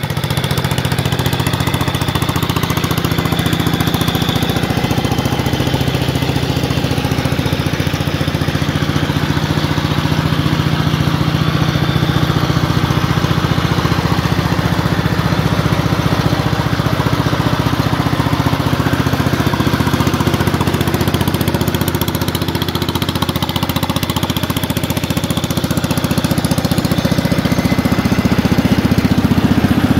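1965 Ford T-1000 garden tractor engine running steadily at a high idle, held fast because with no battery it has to keep up the charge. It gets a little louder near the end.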